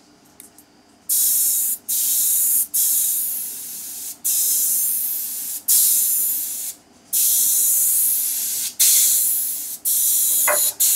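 Gravity-feed airbrush spraying paint onto a lure in a string of about eight hissing bursts, each a second or so long, with brief breaks as the trigger is let off. The spraying starts about a second in.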